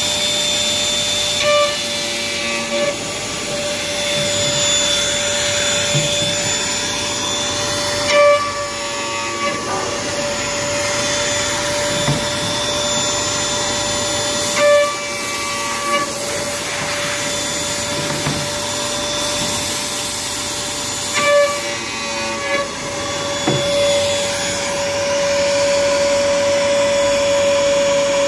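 Edge-banding corner rounding machine running with a steady motor whine. Four brief louder bursts come about every six to seven seconds as its cutter trims the banded panel corners.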